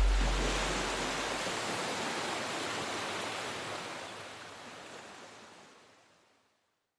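Outro sound effect: a wide hiss of noise slowly fading away, with a deep boom dying out in the first second or two, ending in silence just before the end.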